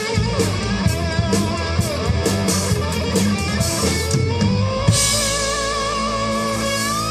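Live rock band playing: electric guitars and bass over a driving drum-kit beat. About five seconds in, the drums end on a loud hit and the band holds long, wavering notes.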